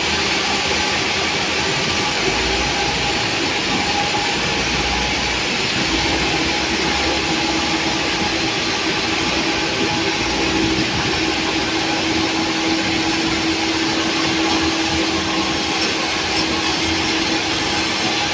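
Sawmill saw running: a loud, steady mechanical noise, with a steady hum that grows stronger about six seconds in.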